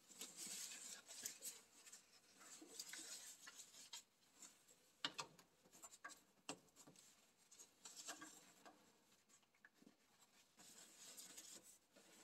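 Faint rubbing and rustling of gloved hands handling hydraulic hoses and their quick-couplers as a hose is unplugged and rerouted. A few light clicks come through, the clearest about five seconds in and again a second and a half later.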